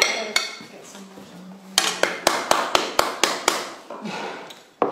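A quick run of about eight sharp taps, roughly four a second, as risotto is plated: a serving spoon knocked against cookware to shake the rice off.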